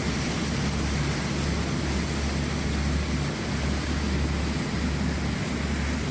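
A small passenger ferry under way: its engine drones steadily, with a constant rushing noise over it.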